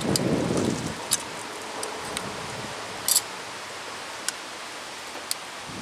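Hand-pumped double-piston brake caliper compressor being worked to push the caliper pistons back: a brief rustling scrape at the start, then several sharp clicks about a second apart, the loudest about three seconds in. A steady hiss runs underneath.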